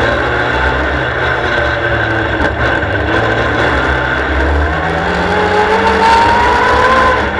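Superstox oval race car's engine heard from on board, running hard under racing load; from about five seconds in its pitch climbs steadily as the car accelerates along the straight.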